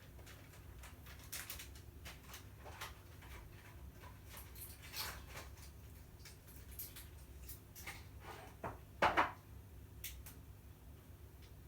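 Pet cats tussling: faint scattered scuffs, taps and light knocks of paws and bodies, with one louder short sound about nine seconds in.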